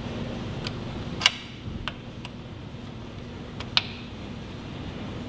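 Torque wrench on the rearset bracket bolts: a few light ratchet ticks and two sharp, loud clicks, about a second in and near four seconds, as the wrench reaches its set torque.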